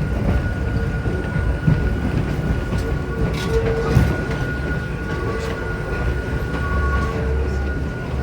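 Hakone Tozan Railway Moha 2 cardan-drive electric railcar running, heard from inside the car: a steady rumble of wheels and running gear with a thin steady whine. Short squealing tones come a few times, with a few knocks on the track.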